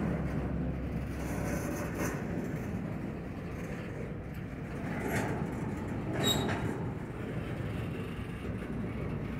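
Double-stack intermodal well cars rolling slowly past on the rails, a steady low rumble of wheels and trucks, with a short high squeak about six seconds in.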